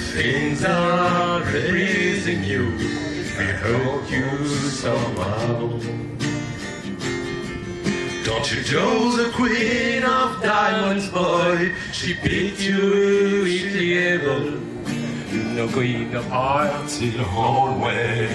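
Acoustic guitar playing with a harmonica melody over it, the harmonica's notes bending up and down in pitch.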